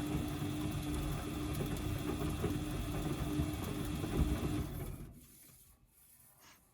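Washing machine's brushed motor running with a steady hum and a crackling noise, then winding down and stopping about five seconds in. The crackle is the fault in question, which some take for worn motor brushes and others for the motor itself going bad.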